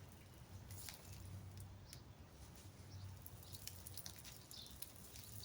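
Faint rustling and scattered soft clicks of hands picking through potting soil and small potatoes in a grow bag, over a low steady hum.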